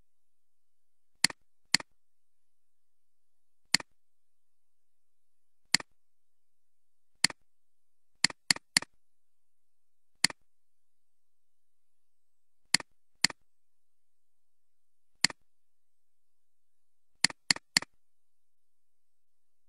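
Computer mouse clicking: about fifteen sharp, separate clicks a second or two apart, some coming in quick pairs and one run of three.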